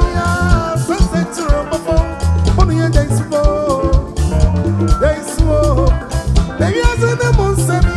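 Ghanaian highlife band music: a steady drum-kit beat and heavy bass under a bending melodic lead line.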